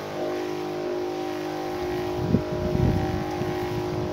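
Electric motor-driven crop sprayer running with a steady, even hum while it sprays. From about halfway in, irregular low rumbling bursts come in on the microphone and grow louder.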